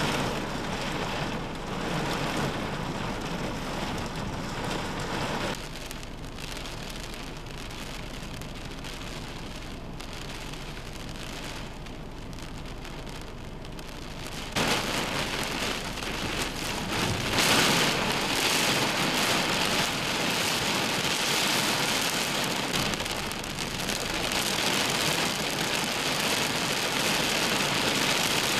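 Heavy wind-driven rain pouring down in a severe thunderstorm, a steady hiss. It drops and softens about five seconds in, then comes back louder and brighter about halfway through.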